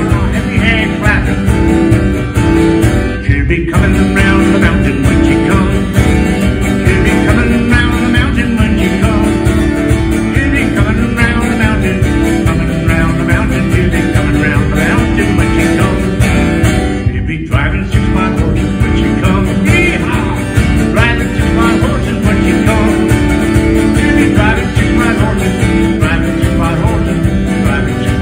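A man sings while strumming an acoustic guitar steadily through a country-style song, with two short breaks in the strumming.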